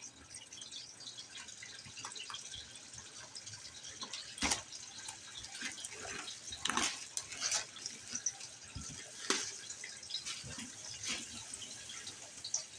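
Clear plastic shrink-wrap crinkling and tearing as it is peeled off a cardboard board-game box, in irregular crackles with a few sharper snaps.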